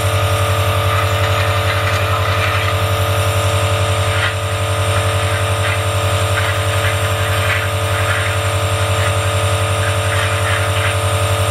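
Nebulizer air compressor running with a loud, steady low hum and a hiss over it, driving air through the tubing to mist medicine into the face mask.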